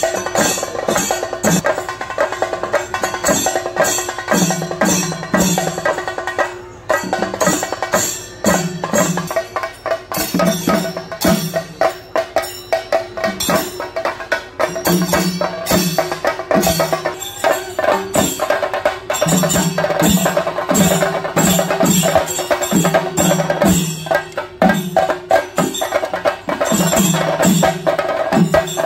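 Chenda drums beaten fast with sticks in a Theyyam drum ensemble: a dense rapid patter of strokes with clusters of deep booming beats, and a steady metallic ringing held over them.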